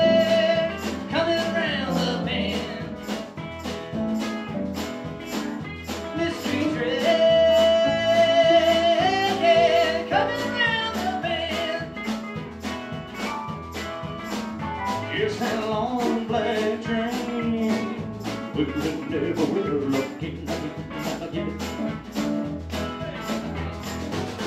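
Live band playing a rockabilly song: a man singing over strummed acoustic guitar, with electric guitar, bass and keyboards on a steady beat. The singing comes and goes in phrases while the band plays on.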